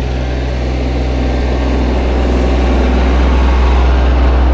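Compact farm tractor's engine running steadily, a little louder near the end.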